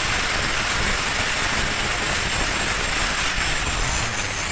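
Stick (arc) welding: the electrode's arc gives a steady, unbroken crackling hiss as a weld bead is run.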